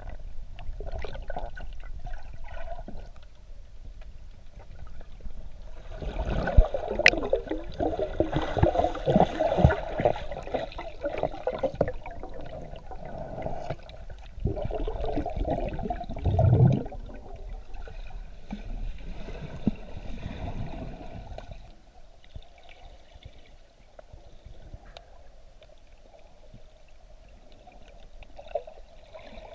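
Water gurgling and sloshing as heard by a camera underwater, muffled, busier and louder through the middle and quieter for the last several seconds.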